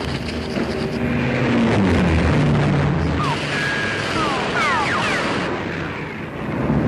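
Air raid battle sound effects from an early-1950s war film soundtrack: a heavy rumble of explosions and engine drone. Midway through comes a cluster of short falling whines.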